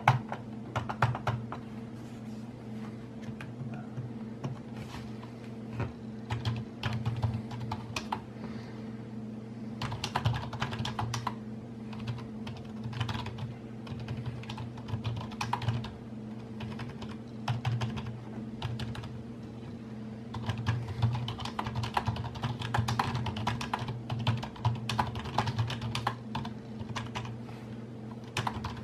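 Typing on a Logitech K400 Plus wireless keyboard: quick runs of clicks from its flat, low-profile membrane keys, coming in bursts with short pauses between.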